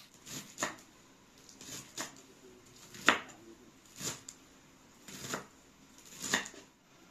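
Kitchen knife chopping cabbage against a wooden cutting board: about eight separate sharp knocks at an uneven pace of roughly one a second, the loudest about three seconds in.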